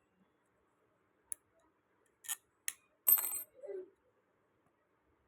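Small metal pieces clicking and clinking against each other: three light clicks, then a louder ringing metallic clink a little past halfway.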